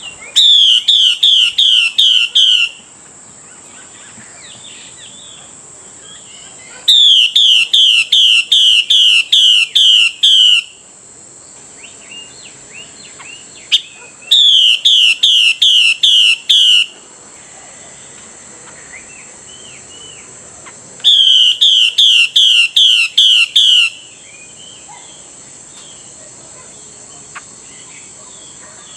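Female Chinese hwamei (melodious laughingthrush) giving its harsh calling phrase, a rapid run of sharp, down-slurred notes lasting two to four seconds, four times about every seven seconds: the call a female uses to draw a male. Faint softer chirps come between the phrases.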